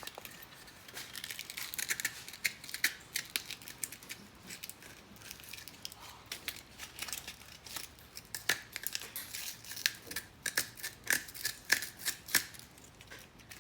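Hand sanding with sandpaper wrapped around a tool: a string of short, irregular scratchy strokes, coming thicker and faster in the second half.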